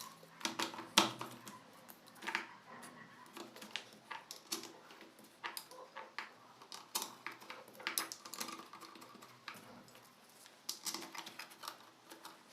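Irregular small clicks and taps of hands working on a Bluetooth speaker's plastic housing and screws during reassembly, with a sharper click about a second in.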